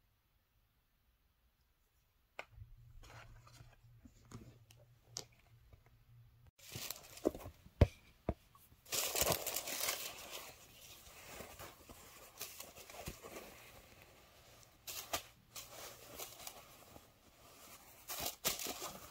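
Packaging being handled: rustling and crinkling of paper and a cloth pouch, with a few sharp clicks. It starts faint after a couple of seconds of silence and gets louder partway through.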